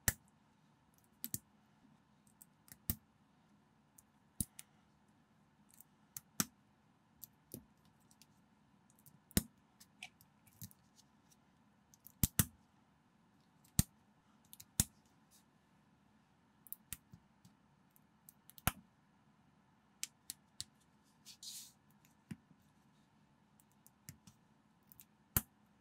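Small plastic LEGO-style minifigure parts being fitted and snapped together by hand: irregular sharp clicks, a few seconds or less apart, with a brief rustle about twenty-one seconds in.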